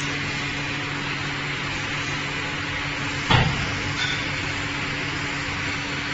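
Multifunction glass cutting machine's loading arm working as it tilts a glass sheet up off the rack: a steady machine hum, with one loud clunk about three seconds in and a lighter tick just after.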